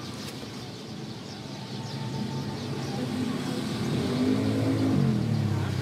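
A motor vehicle engine getting louder as it comes close, its pitch dropping about five seconds in as it passes, over the soft rustle of clothes being handled.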